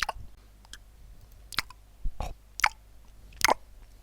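A person chewing food, with a string of separate sharp clicks and smacks from the mouth, spaced about half a second to a second apart.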